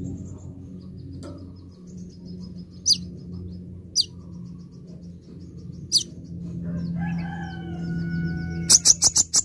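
Van Hasselt's sunbird (kolibri ninja) calling: fine, rapid trills of high ticking notes, broken by single loud, sharp down-slurred notes three times, then a quick burst of loud sharp notes near the end. A rooster crows in the background just before the end, over a low steady hum.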